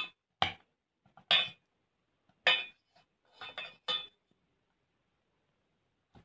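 Metal potato masher knocking against the inside of a stainless steel saucepan as boiled potatoes are mashed: about six sharp clinks in the first four seconds.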